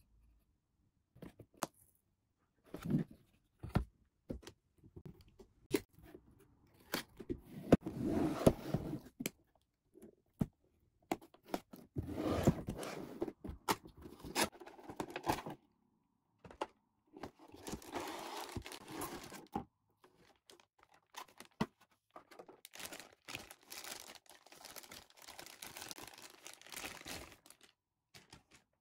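Cardboard figure box and its packaging being opened by hand: bursts of tearing, crinkling and scraping, with sharp clicks and taps in between.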